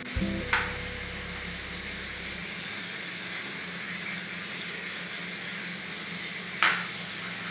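Chicken pieces frying in oil in an aluminium kadai with a steady sizzling hiss, just after onion paste and ginger-garlic paste have gone in. Two short louder sounds come about half a second in and near the end.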